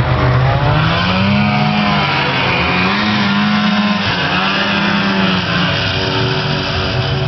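Snowmobile engine running and being throttled, its pitch swelling up and falling back about three times.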